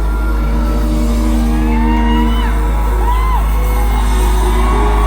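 Live band music played loud through a concert sound system, with a heavy steady bass and sustained held notes. Audience whoops and high screams rise and fall over it a few times.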